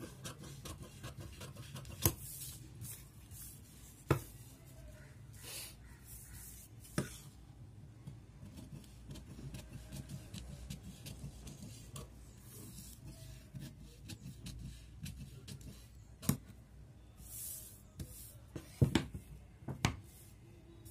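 Tailoring scissors cutting through a sheet of newspaper: scratchy snipping and paper rustling, with a few sharp clicks as the blades close or knock the table.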